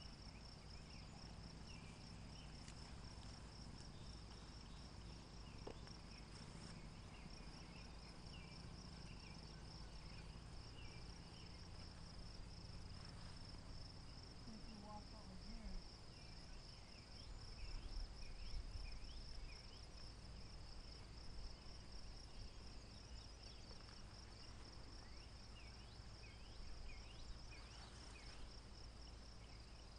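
Faint, steady chorus of insects: a continuous high pulsing trill, with a low rumble underneath.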